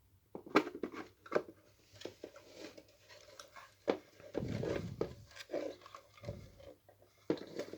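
Scattered clicks, knocks and scraping as the AE&T T105N fire alarm sounder's casing is handled and opened, with a busier stretch of rustling and scraping about halfway through.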